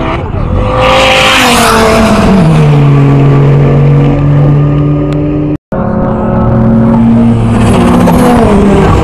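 Cars passing close at speed on a race circuit's straight, one after another. Each engine note grows loud and drops in pitch as the car goes by, about two seconds in and again near the end. The sound cuts out for an instant just past the middle.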